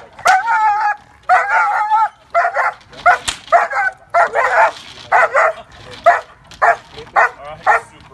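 Dog barking over and over. The first barks are drawn out and whining, and later ones come short and regular, about two a second. A single sharp crack sounds about three seconds in.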